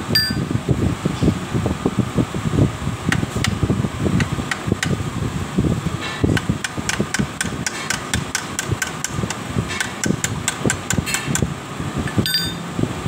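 Sharp metal-on-metal taps as a hand tool works on the welding machine's threaded adjusting rod. A few scattered taps come first, then from about six seconds in a steady run of about three a second, over a constant fan-like rumble.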